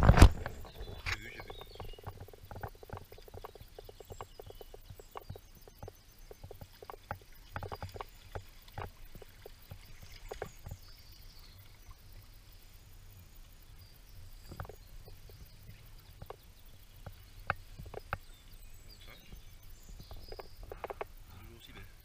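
Handling noise from an angler wading and fishing with spinning tackle: a loud knock at the start, then faint, irregular clicks and short rustles throughout.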